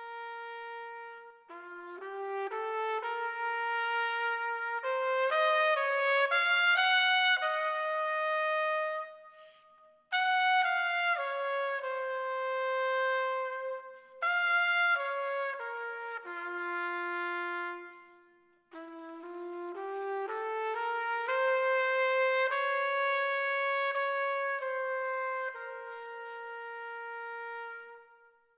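Instrumental closing-theme music led by sustained brass notes, in several phrases with short breaks between them. It stops just before the end.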